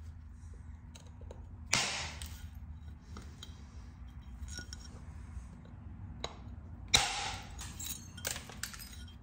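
Pressure flaking the edge of a heat-treated Flint River chert knife preform: small clicks of the tool on the stone, with two sharp snaps and a short glassy ring about two and seven seconds in.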